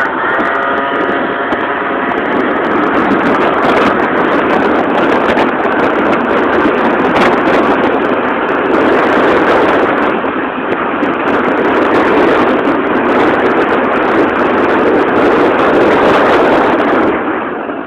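Motorbike engine running, its pitch shifting for the first couple of seconds, then a steady rough rush of noise.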